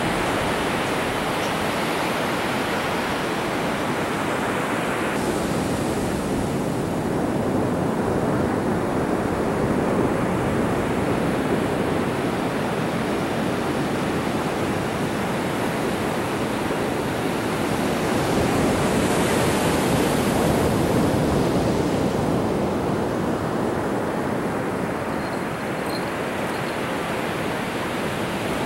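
Ocean surf breaking on a sandy beach: a steady rush of noise that swells and eases a couple of times.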